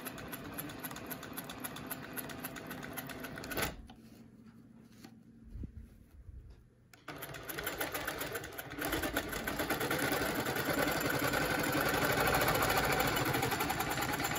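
Longarm quilting machine stitching with its rapid, even needle rhythm as it is guided along a quilting ruler. About four seconds in it stops for roughly three seconds, then starts stitching again and runs louder from about nine seconds on.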